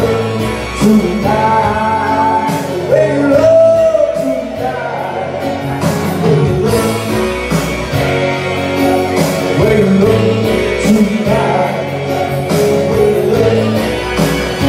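A man singing live into a handheld microphone over instrumental accompaniment, amplified through PA speakers in a hall.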